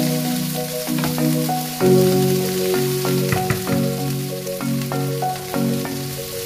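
Prawns frying in garlic butter in a pan, with a steady sizzle and a wooden spatula stirring and scraping now and then. Background music with held notes plays over it.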